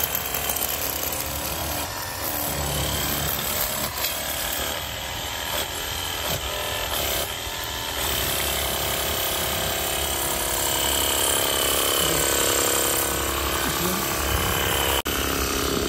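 VARSK VAR-910 20V cordless pressure washer running: its battery-powered pump whines steadily while the jet hisses against a car wheel, tyre and wet asphalt. The spray gets louder and steadier about halfway through as the nozzle is turned.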